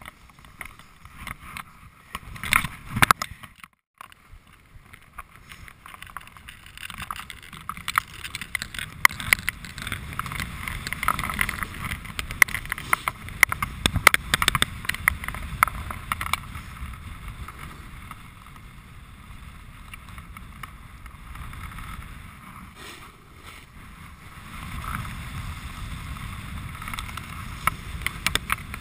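Snowboard sliding down a packed, groomed slope, its base and edges scraping and crackling over the snow. The scraping is loudest midway through, as the board carves hard and throws up snow, and cuts out for a moment about four seconds in.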